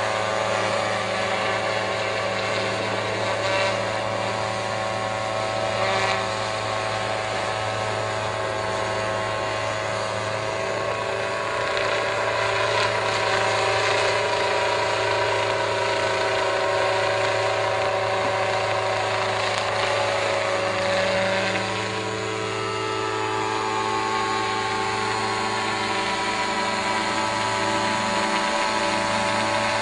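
Motorized sprayer running steadily with a constant mechanical hum; it dips briefly and shifts slightly in pitch about two-thirds of the way through.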